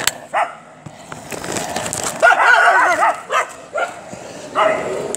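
Dogs giving short barks and yips, with a longer wavering whine a little past two seconds in.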